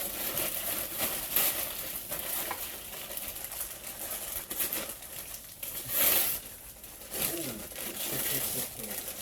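Gift wrapping being crinkled and torn open as a present is unwrapped, with a louder rustle about six seconds in.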